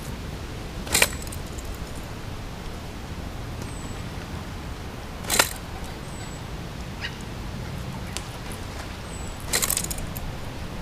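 Bait catapult firing balls of ground bait, three sharp snaps about four seconds apart, the last a short rattling cluster. Wind rumbles on the microphone underneath, with a few faint high chirps.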